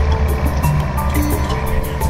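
Background music with held synthesizer-like notes over a steady percussive beat.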